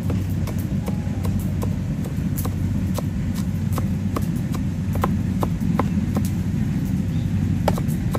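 Cleaver rapidly mincing garlic cloves on a thick round wooden chopping block: a fast, continuous run of dull thuds, with sharper knocks of the blade standing out a few times a second.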